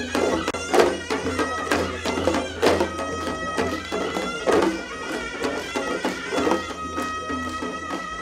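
Korean traditional folk music: a reedy wind instrument holds and shifts a melody over sharp drum beats about once a second.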